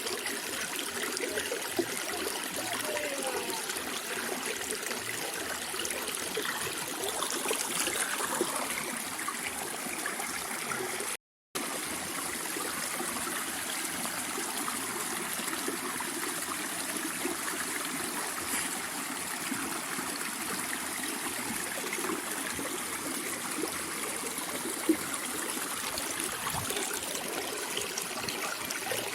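Running water of a stream, trickling and gurgling steadily, with one brief cut to silence about eleven seconds in.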